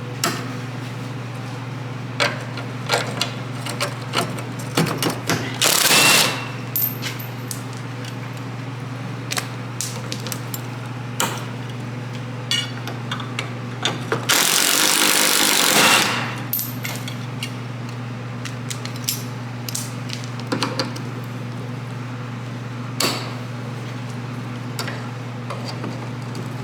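Hand tools clicking and knocking on metal while working on bumper mounting studs, over a steady low hum. Two hissing bursts, one short about six seconds in and a longer one of about two seconds near the middle.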